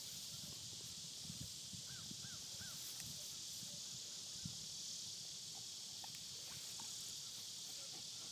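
Steady high-pitched insect chorus, with three quick chirps about two seconds in.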